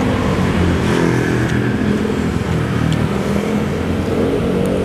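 Road traffic close by: motorcycle and car engines running steadily, with a few light clinks of a metal spoon against a plate.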